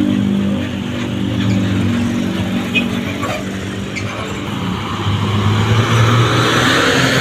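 An old bus engine running, its note rising and getting louder from about five seconds in.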